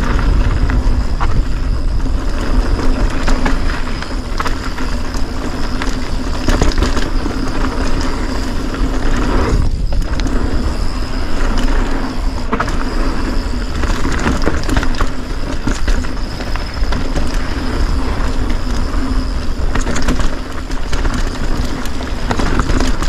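Polygon Siskiu mountain bike riding down a dirt trail: tyre noise and the rattle and clatter of the bike over bumps, over a steady low rumble of wind on the camera's microphone.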